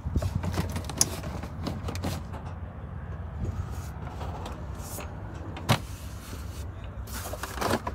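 Plastic dash trim being pulled and worked loose by hand, with rustling and two sharp plastic clicks, about a second in and again near the end. A steady low rumble runs underneath.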